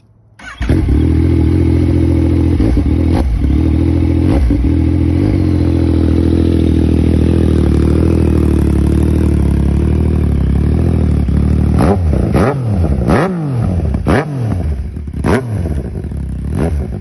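Yamaha MT-09's inline three-cylinder engine through an aftermarket SC-Project exhaust, starting up about half a second in and idling steadily. In the second half the throttle is blipped about six times in quick succession, each a sharp rise and fall in engine speed.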